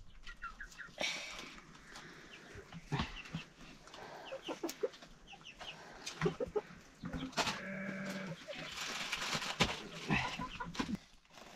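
Chickens clucking with many short calls, and one long bleat about two thirds of the way through. A stretch of rustling follows near the end.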